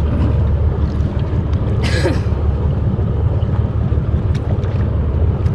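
Steady wind rumble on the microphone over the sea on a small boat, with a short sharp hiss like a splash about two seconds in.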